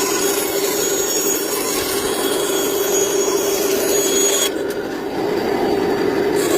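Steady abrasive rubbing on wood over a constant hum. The bright upper hiss dulls for about two seconds past the middle.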